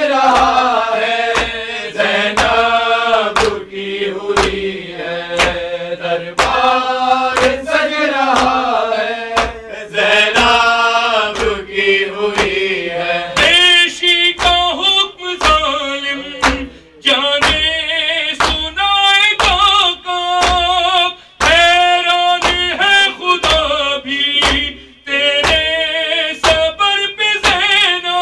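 A man chanting a melodic, drawn-out recitation into a handheld microphone, with steady hand beats keeping time about one and a half times a second.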